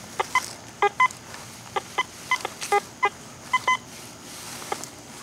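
Metal detector giving about a dozen short beeps at uneven intervals as the coil sweeps over grass. The rapid chatter of signals is typical of ground packed with buried trash targets.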